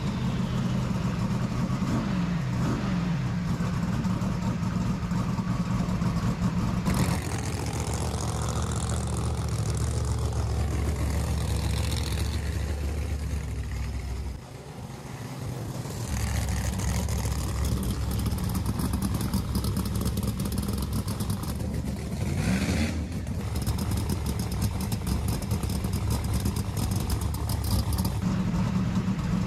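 Turbocharged drag race car engine running and revving through a burnout and staging: a steady engine drone, with rising revs near the start and again about 22 seconds in, and a brief drop in loudness about 14 seconds in.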